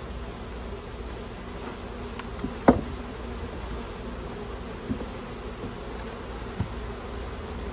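Honey bees humming steadily around an open hive. Short knocks as hive frames are handled cut through it: a sharp, loud one about two and a half seconds in and two lighter ones later.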